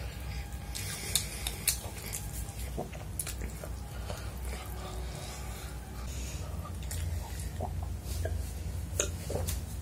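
Close-miked eating: chewing and wet mouth sounds with scattered small clicks as rice and chicken are eaten by hand, over a steady low hum. Near the end, a drink from a glass.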